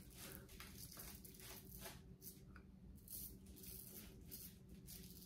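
Faint scratchy scraping of a Merkur 34c double-edge safety razor cutting lathered stubble in a run of short strokes, over a low steady hum.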